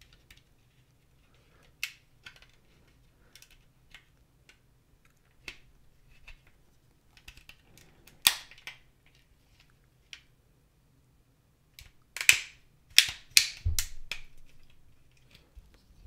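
Plastic clips of an LG TV remote's casing snapping loose as a guitar pick pries the two halves apart: scattered sharp clicks, with a cluster of the loudest about twelve to fourteen seconds in.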